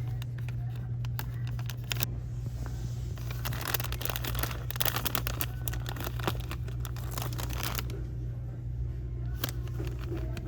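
Supermarket ambience: a steady low hum with scattered clicks and rustling, busiest in the middle.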